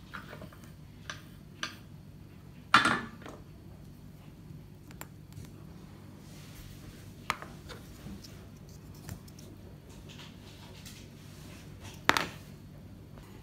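Tools and small parts being handled on a workbench: scattered light clicks and clinks, with two louder knocks, one about three seconds in and one near the end.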